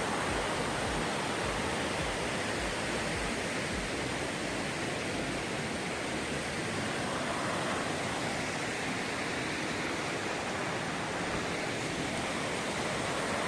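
Fast-flowing river water rushing steadily over rocks, an even, unbroken hiss.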